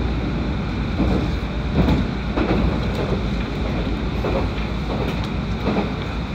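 Passenger train running along the track, heard from inside the front of the car: a steady rumble of wheels on rail, with a few irregular knocks and clatters.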